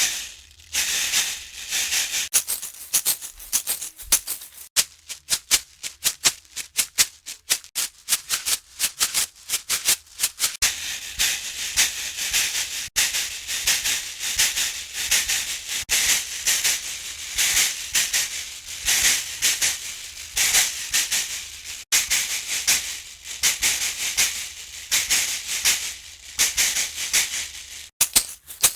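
Berimbau being played, heard mostly as the dry, rapid rhythmic shaking of its caxixi basket rattle, with short gaps now and then.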